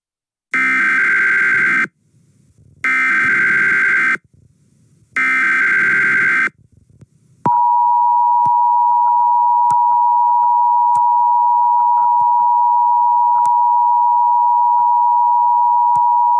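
Emergency Alert System alert opening: three bursts of SAME digital header tones, each a harsh data warble about a second and a half long, then about 7.5 s in the steady two-tone EAS attention signal starts and holds.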